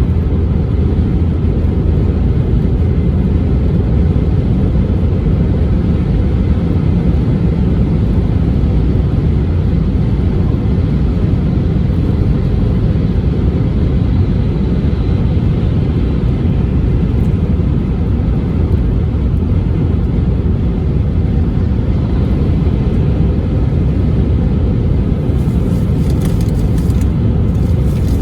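Car driving along a road: a steady low rumble of engine and tyre noise that holds an even level throughout, with a few faint light ticks near the end.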